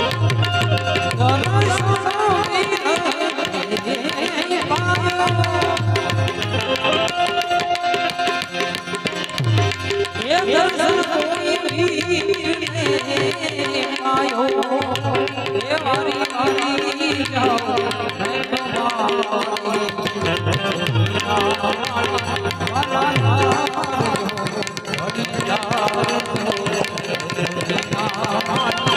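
Instrumental break in a Gujarati bhajan: tabla keeping a steady rhythm under a melody instrument whose line slides between notes.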